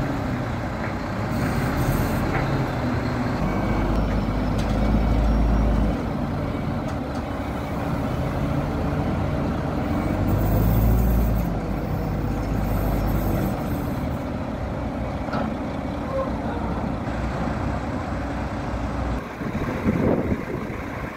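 Diesel engine of a Demag/Terex AC220-5 all-terrain crane running under load in first gear as the crane climbs slowly onto a lowbed trailer. The low rumble swells twice, about four and ten seconds in, and there are short bursts of hiss around ten to thirteen seconds in.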